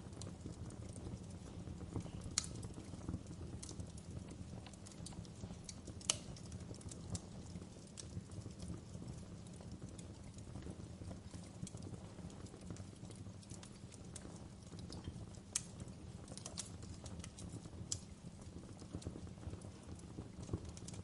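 Wood fire crackling in a fireplace: irregular sharp pops and snaps from the burning logs over a steady low rumble, with a few louder pops about two, six and fifteen seconds in.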